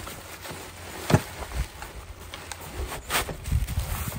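Nylon stuff sack of tent poles being handled and opened on a wooden table: fabric rustling and scraping, with one sharp knock about a second in.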